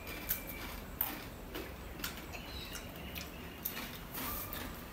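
Two people chewing pieces of a crisp black tortilla chip, the Jolo chip, with irregular sharp crunches.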